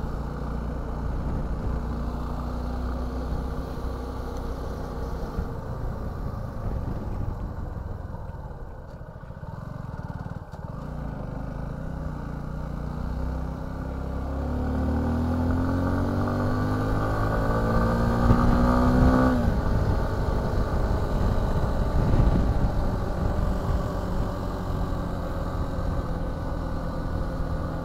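Suzuki V-Strom 250's parallel-twin engine under way: the revs sag about a third of the way in, then climb in a long rising pull that drops off sharply about two-thirds of the way through, and the engine runs on steadily after.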